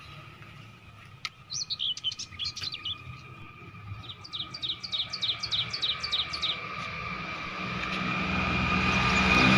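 A small bird chirping in two quick runs of short, falling chirps, about six a second, the second run longer than the first. A steady high drone underneath grows louder near the end.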